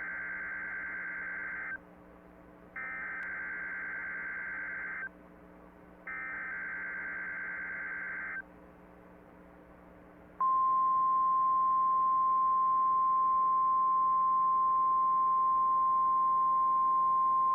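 NOAA Weather Radio emergency alert test received on a weather radio: three bursts of warbling, screechy SAME digital header data, each about two seconds long with a second's gap between them. About ten seconds in, the loud steady 1050 Hz warning alarm tone starts and holds over a faint hiss.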